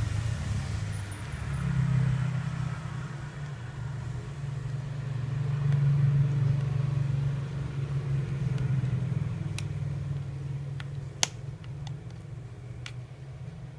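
A low rumble that swells and fades twice, with a few sharp clicks near the end.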